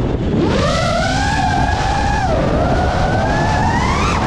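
FPV quadcopter's brushless motors whining from the onboard camera, the pitch following the throttle: a dip just after the start, a steady stretch, then a long climb that falls away sharply near the end, over a low rumble.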